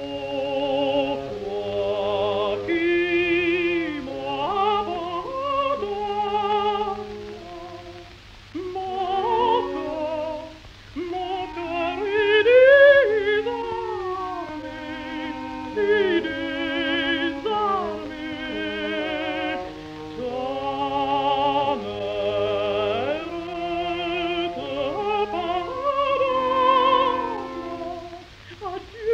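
A contralto singing an operatic aria with a wide vibrato on an old 1929 recording, over a steady low hum. She passes between her registers with smooth, barely detectable transitions.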